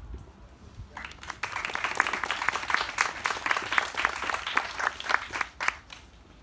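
Audience applauding: many hands clapping, starting about a second in and dying away after about five seconds.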